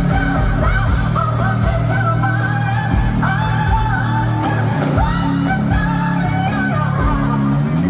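Rock-style music with a singing voice and guitar over a steady drum beat.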